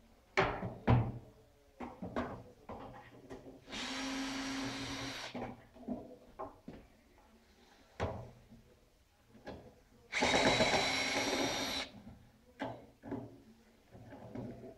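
Cordless drill-driver running in two bursts of about a second and a half each, about four seconds in and again about ten seconds in, working at the corner of a wooden chair frame. Short knocks and clicks of the tool and the wood being handled come in between.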